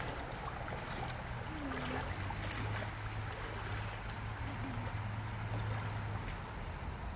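Shallow river current flowing and rippling along the bank, a steady rushing of water.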